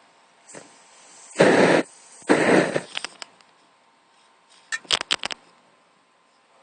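Two short whooshes of Axe aerosol body spray sprayed through a lighter flame and igniting, each lasting about half a second. A quick run of sharp clicks follows near the end.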